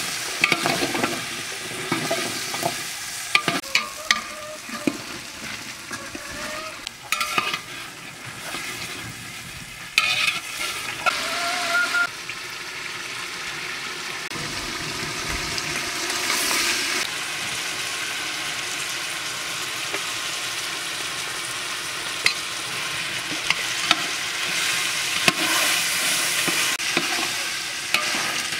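Turnip pieces frying in oil and spice paste in an aluminium pot, a steady sizzle, with a metal spatula clinking and scraping against the pot as they are stirred; the clatter is busiest in about the first twelve seconds, with a few single clinks later.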